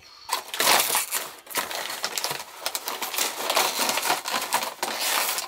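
Plastic cookie packaging crinkling as it is opened and handled: a dense, continuous run of crisp crackles.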